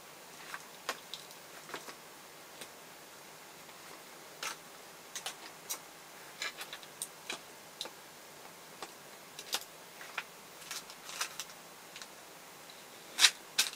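Scattered light clicks and taps of hands handling the small parts of an opened cordless screwdriver on a tabletop, at irregular intervals. Near the end comes a louder one as a small plastic bag of resistors is set down.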